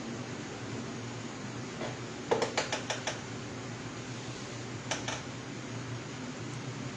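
Steady hum of a room fan, with a quick run of about five sharp clicks a little after two seconds in and two more clicks near five seconds.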